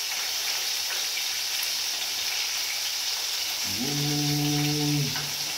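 Hot oil sizzling steadily in a frying pan as chicken and festival dumplings fry. About four seconds in, a man's voice holds one long hummed note for a second and a half.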